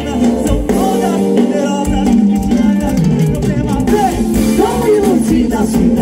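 Loud dance music with a singing voice and percussion; the bass drops out for about a second near the start, then comes back in.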